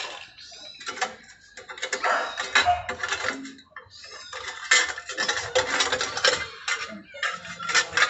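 Metal hand tools and fittings clinking and clattering irregularly as they are handled at a refrigerator compressor's lines, over a faint steady hum.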